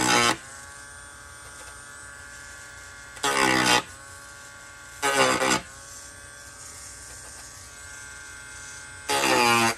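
Handheld rotary tool running with a steady whine, grinding down rough spots on the plastic model. Four times the bit is pressed into the plastic and the sound jumps to a louder grind that bends in pitch, near the start, at about three and five seconds, and near the end.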